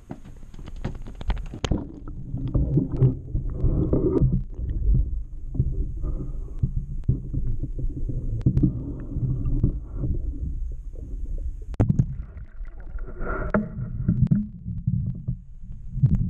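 Muffled, uneven low rumble of water moving around a submerged camera, with scattered sharp knocks and clicks, a cluster of them in the first second or two.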